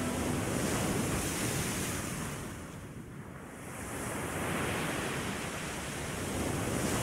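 The last of the song's music cuts off just after the start, leaving an even rushing noise like surf or wind. The noise ebbs to its quietest about three seconds in, then swells again.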